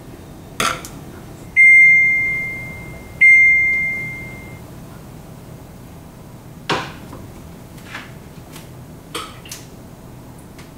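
Two beeps from an electric cooktop's touch controls, about a second and a half apart, each one high tone that fades away. A few seconds later a pan is set down on the glass top with a knock, followed by a few light clicks.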